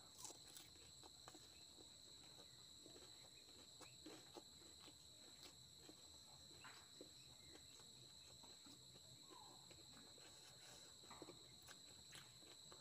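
Near silence: faint, scattered clicks of a person chewing a crisp puri of phuska (panipuri) with the mouth closed, over a steady high-pitched whine.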